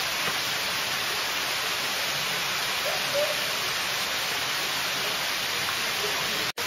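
Steady, even rushing noise with no distinct events, and a faint short pitched sound about three seconds in.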